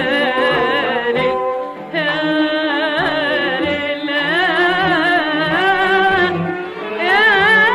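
Arabic tarab music from an old recording with little treble: a wavering melodic line with vibrato over ensemble accompaniment, dipping briefly a little past one second in.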